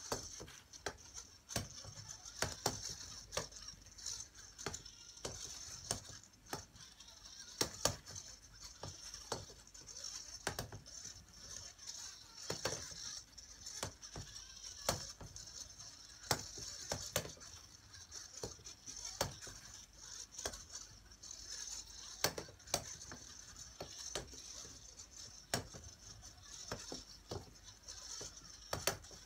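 Sphero robot balls rolling inside wooden frames and bumping into the frame walls: irregular sharp knocks, about one or two a second, over a steady high-pitched hiss.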